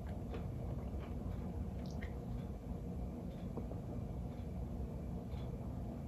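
A person drinking ginger ale from a small glass, with faint wet gulping and swallowing clicks over a low steady background hum.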